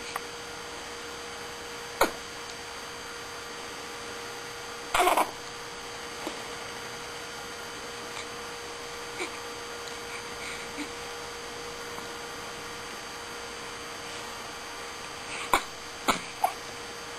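Newborn baby grumbling: brief scattered grunts and fussy little noises, the loudest and longest about five seconds in and a small cluster near the end, over a steady electrical hum.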